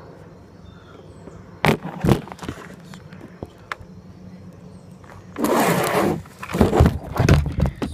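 Handling noise close to the microphone: two sharp knocks, then a few seconds of loud rustling and bumping in the second half.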